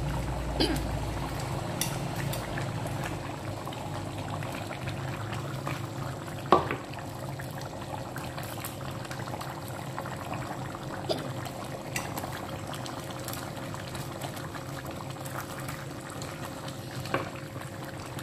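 Tauco sauce with mujair fish boiling in a pan, a steady bubbling, with a few sharp knocks of a spatula on the pan, the loudest about six and a half seconds in.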